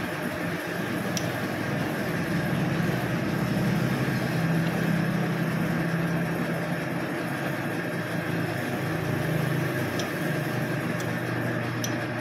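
Metal lathe running while cutting the teeth of a spur gear blank: a steady machine hum with a constant high whine above it, swelling slightly mid-way, and a few faint ticks.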